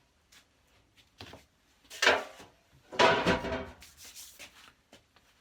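Sweeping up with a brush and janitor's dustpan: a few short, rough brushing and scraping strokes, the two loudest about two and three seconds in.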